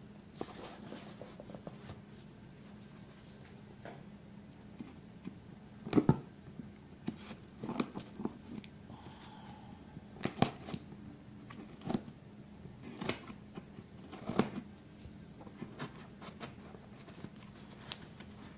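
Scissors snipping and slicing through packing tape on a cardboard shipping box, with the box being handled and turned. Irregular sharp snips and knocks, the loudest about six seconds in and again around ten and fourteen seconds.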